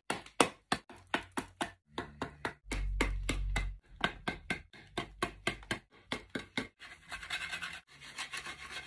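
A small hatchet chopping and hewing a peeled wooden branch, sharp strikes about three a second, as a wooden sword blade is roughed out. Near the end the strokes turn quicker and finer: a knife shaving the wood.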